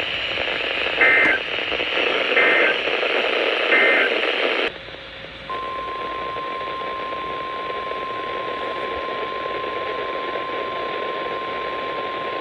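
NOAA Weather Radio receiver hissing with static while three short end-of-message data bursts sound about 1.4 s apart, marking the end of a warning broadcast. The static cuts off sharply, and about 5.5 seconds in the steady 1050 Hz weather radio warning alarm tone begins and holds, signalling a new alert.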